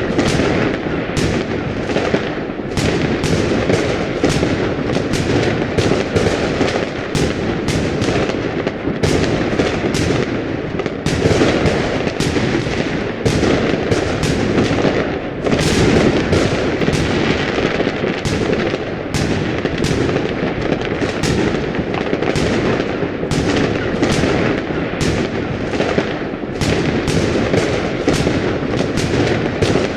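Fireworks display: a dense, continuous barrage of bangs and crackles, several shots a second over a steady rumble of overlapping bursts.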